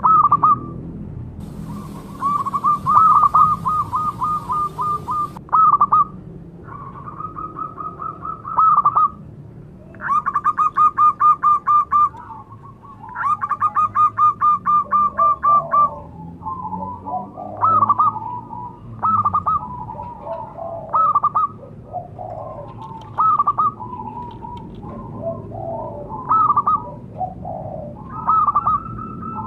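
Zebra dove (perkutut) cooing: repeated phrases of rapid staccato coo notes, several in a row. In the second half the phrases grow more tangled and overlap.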